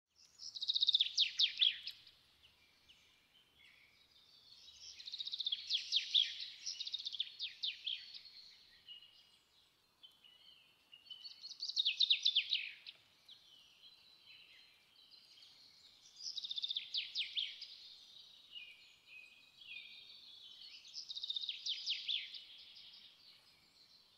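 Birdsong: a bird sings five high trilled phrases, about one every five seconds.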